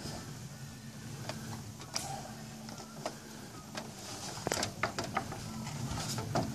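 Solar panel being handled on the wooden platform of a ladder hoist: scattered knocks and clatter of the panel frame and wood, thickest near the end, over a steady low hum.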